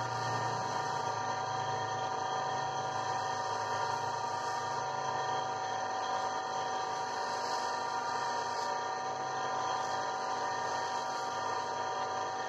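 Electric motor of a gemstone grinding machine running with a steady whine, its wheel spinning while an agate ring stone is held against it.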